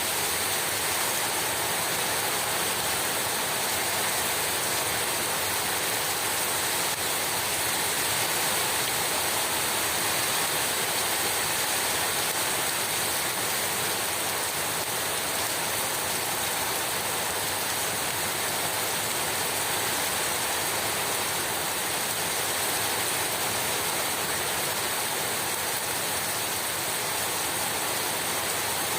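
Heavy rain pouring steadily, an even, unbroken hiss of falling water.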